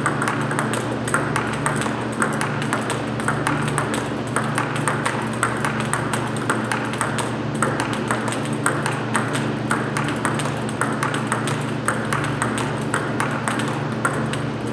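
Table tennis balls clicking off bats and table in a quick, irregular stream of sharp, overlapping ticks, over a steady low hum.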